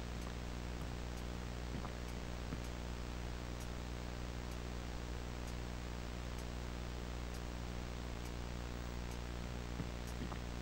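Grandfather clock ticking faintly, just under once a second, over a steady low hum and hiss.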